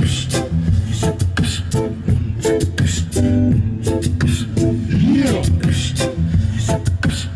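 Beatboxed beat built up in layers on a loop pedal and played through a street amplifier, with live vocal percussion into the microphone on top. There is a steady pulse of sharp hits over a deep bass line, and a rising-and-falling vocal swoop about five seconds in.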